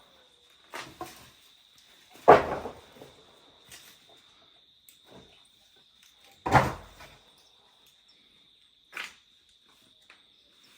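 Building-site knocks from carpentry and masonry work: two loud bangs a few seconds apart, with lighter knocks around them. A steady high insect drone runs underneath.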